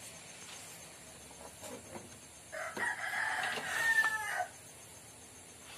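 A rooster crows once, a drawn-out call of about two seconds starting roughly two and a half seconds in. A few faint clicks come before it.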